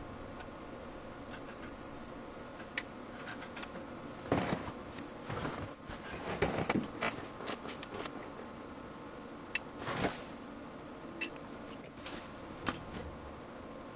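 Scattered clicks, taps and short rustles of equipment being handled on a test bench, busiest about four to seven seconds in and again around ten seconds, over a faint steady hum.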